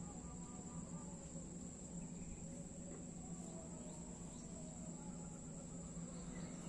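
Steady high-pitched trilling of crickets, with a low steady hum underneath and a few faint chirps.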